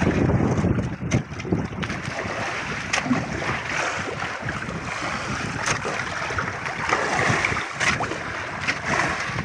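Wind buffeting the microphone hard for the first couple of seconds, then choppy sea water lapping and splashing against the side of an outrigger boat, with small scattered splashes.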